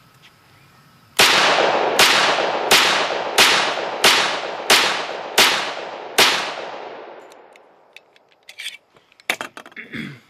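Sig Sauer 1911 Fastback Nightmare pistol firing eight shots at a steady pace, about one every three-quarters of a second, each followed by a fading echo; a few small clicks follow near the end.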